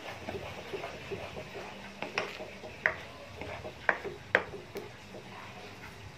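A spoon stirring thick ube halaya mixture in a metal pan: soft scraping and ticking throughout, with a few sharper clinks of the spoon against the pan in the middle.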